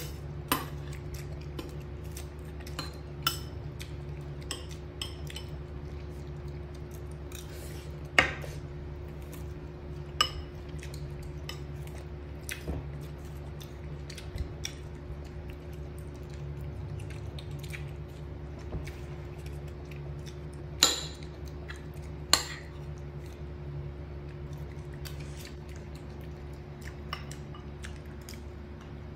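Scattered clinks and knocks of dishes and cutlery on a table, among them a ceramic plate and bowls, over a steady low hum. The sharpest knocks come about 8 and 21 seconds in.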